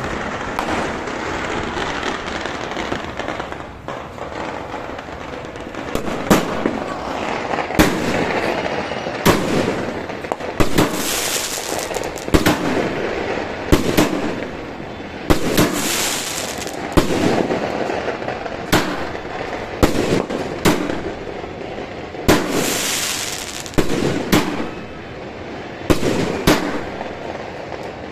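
Multi-shot fireworks cake firing shot after shot: sharp bangs every second or two, starting about six seconds in, with stretches of crackling between some of them.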